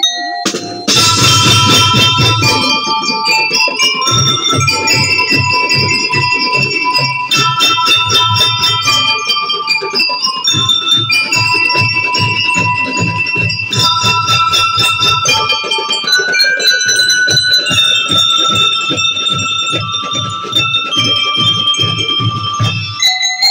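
Drum and lyre band playing: bell lyres ring out a melody over fast snare drumming and regular bass drum beats. The drums come in about a second in and drop out near the end, leaving the lyres alone.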